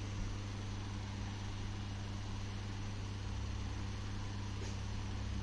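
Steady low electrical or mechanical hum of room equipment, one constant drone, with a brief faint hiss about four and a half seconds in.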